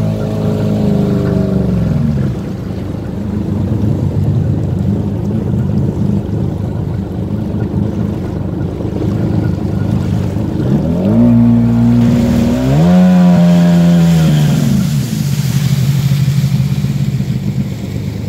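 A small motorboat's engine running and changing speed: its pitch drops about two seconds in, climbs again near the middle, and settles back lower near the end. Wind and water noise run under it.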